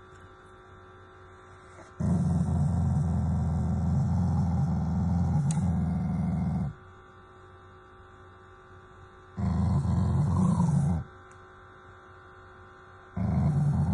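Black Shiba Inu growling in low, rough rumbles: one long bout of about four seconds, a shorter one past the middle, and another starting near the end. It is the dog's affectionate growl at its owner's hand, not a threat.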